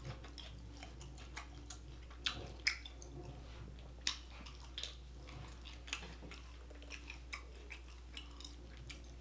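Close-miked chewing of a burrito: soft, wet mouth smacks and clicks, irregular, with a few sharper smacks now and then.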